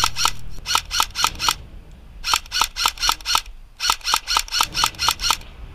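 AK-style airsoft rifle firing in rapid bursts, about seven evenly spaced shots a second, each a sharp snap with a brief ring. Four bursts, with short pauses between them.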